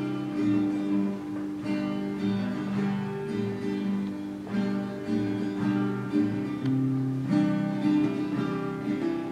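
Acoustic guitar strummed slowly, chords left to ring, a new strum about every second.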